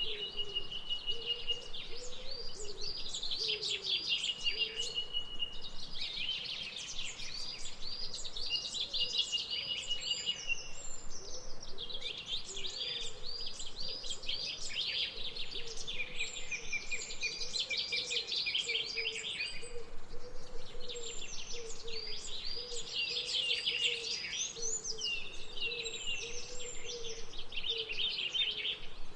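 Birds chirping and singing continuously, rapid runs of high notes with a few held trills, over a low wavering tone.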